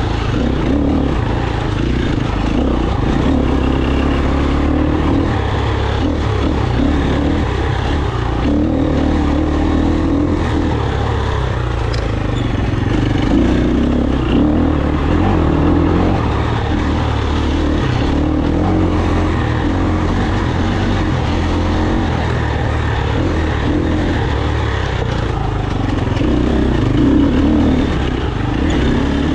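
KTM 350 single-cylinder four-stroke enduro motorcycle engine running under the rider, its revs rising and falling every few seconds as it is ridden over trail terrain.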